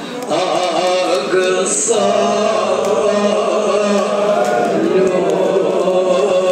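A man chanting a Kashmiri marsiya, a Shia elegy of mourning, into a microphone in long melodic phrases with drawn-out, wavering notes. About two seconds in, a low steady tone holds beneath the voice for a couple of seconds.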